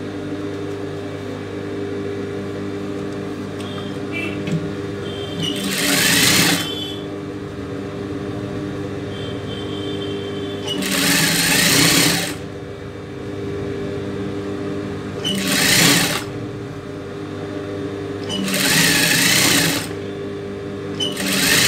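Industrial sewing machine stitching a brocade border in five short runs of about a second each, a few seconds apart, with the motor's steady hum carrying on between them.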